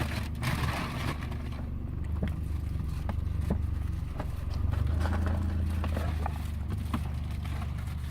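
Steady low rumble of a car in motion heard from inside the cabin, with scattered light clicks and knocks.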